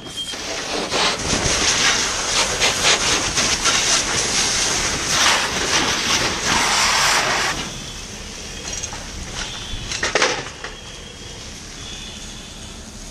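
Fire hose stream hissing as water hits burning material and throws up steam, with crackling through it; it cuts back sharply about seven and a half seconds in, and a short rush of spray comes again about ten seconds in.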